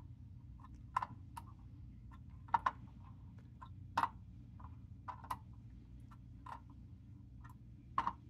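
Irregular light clicks of multimeter probe tips tapping against diode leads on a circuit board as the diodes are tested one after another, about a dozen over several seconds, over a low steady background hum.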